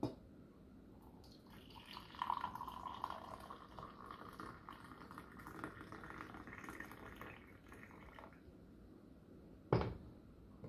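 Coffee being poured into a cup for about six seconds, the pitch of the stream rising as it goes. There is a knock at the start and a clunk near the end.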